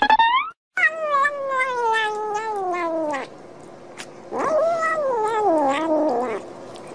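Domestic cat meowing: a short rising meow, then two long drawn-out meows. The first of the long ones falls steadily in pitch over about two and a half seconds; the second wavers up and down for about two seconds.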